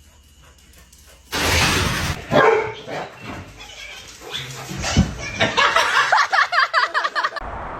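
A sudden loud clatter about a second in, then a dog yelping in a quick run of high-pitched cries, several a second, near the end.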